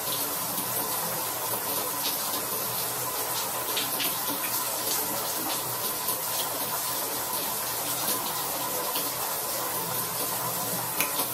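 Water running steadily from a bathroom tap, with a few faint splashes or clicks scattered through it.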